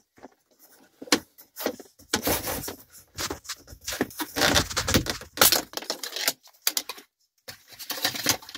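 Plastic dash trim panel around a Mitsubishi Montero Sport's factory radio being worked loose and pulled off by hand: irregular plastic clicks and scrapes as its clips let go.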